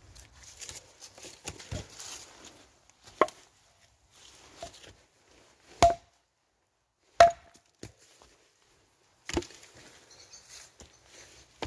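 Hultafors trekking axe chopping branches of firewood on a log chopping block. Several sharp strikes come a couple of seconds apart, two of them ringing briefly, with rustling as the wood is handled between blows.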